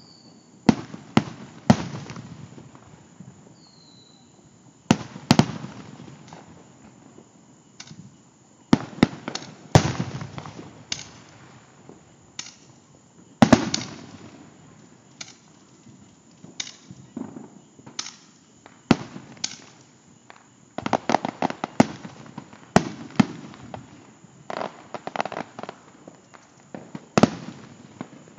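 Aerial fireworks show: shells burst in a dozen or more sharp booms at irregular intervals, each trailing off in a short rolling echo. About two-thirds of the way through comes a quick run of rapid crackling reports.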